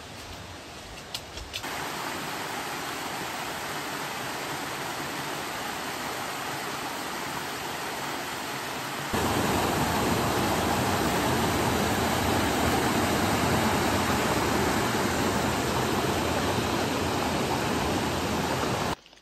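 Steady rush of flowing water from a stream or waterfall. It gets louder in two sudden steps, about two seconds in and again about halfway, and cuts off just before the end.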